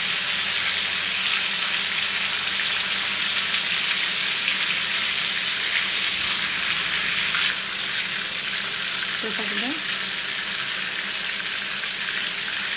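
Marinated lamb chops sizzling steadily as they shallow-fry in hot vegetable oil in a nonstick frying pan. The sizzle drops a little in loudness about halfway through.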